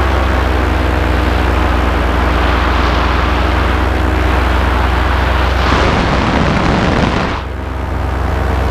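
Paramotor engine, a Moster two-stroke single-cylinder on a SkyMax frame, running steadily in flight with its propeller. About six seconds in, a rush of wind noise on the microphone swells over it for a second or so, then the sound dips briefly before the steady engine note returns.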